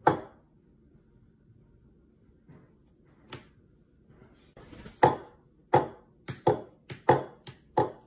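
Metal meat tenderizer knocked down onto a kitchen countertop: one sharp knock at the start, another about three seconds in, then a quick run of about seven knocks in the last three seconds.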